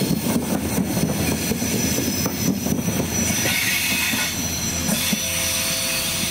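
Intercity coaches and control car rolling past on steel wheels, clicking over rail joints for the first few seconds. A thin wheel squeal follows as the train draws away.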